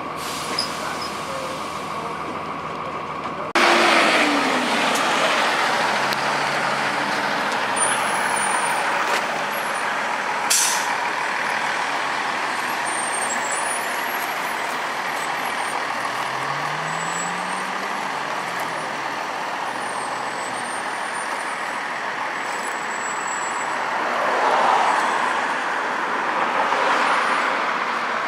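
Cummins ISC inline-six diesel of a 2002 Blue Bird school bus running under way, with road noise and cabin rattle. About three and a half seconds in a sudden loud burst of hiss cuts in, and around the middle the engine pitch rises then falls as it pulls and shifts through the Allison automatic.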